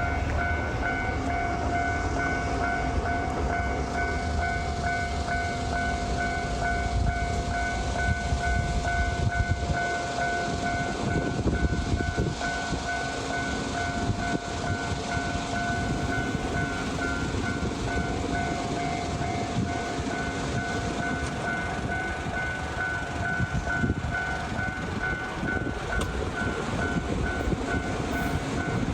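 Japanese level-crossing warning bell ringing with a steady, repeating tone while a train runs past on the rails. The rumble is heaviest in the first ten seconds or so, then eases.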